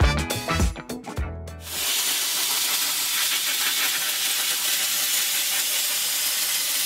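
The last bars of a song end within the first two seconds; then a dry sandblaster's nozzle hisses steadily as it blasts the steel hull plating.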